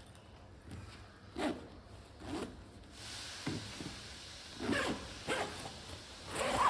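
A bag's zipper being pulled along in several short, rasping strokes, about six in a few seconds.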